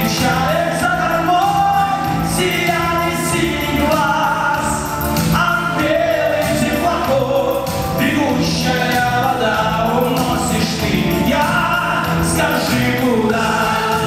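Live pop-rock song from a 1980s-style Russian vocal-instrumental ensemble (VIA): male lead vocalist singing over the band's backing, with keyboard and electric guitar.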